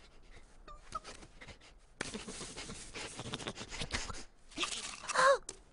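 Cartoon sound effects: faint clicks and small squeaks, then from about two seconds in a stretch of scraping and rustling, ending about five seconds in with a short, loud cry whose pitch bends up and down.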